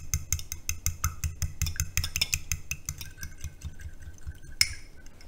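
A fork beating a raw egg in a small glass bowl, its tines clicking against the glass in a fast, steady rhythm. A short, louder noise comes near the end.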